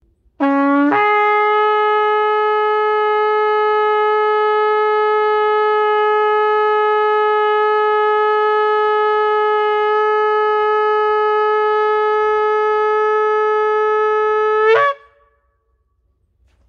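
Shofar, a long curved animal horn, blown in one long held blast of about fourteen seconds. It opens on a short low note that jumps up to a steady higher note, which flicks upward just before it cuts off.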